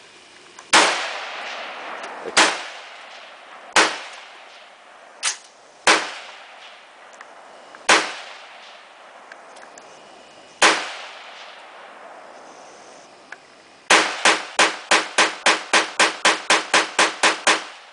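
Rifle shots firing tracer rounds: seven single shots a second or more apart, one of them fainter, then a fast string of about fifteen shots at around four a second near the end, each trailing off in an echo.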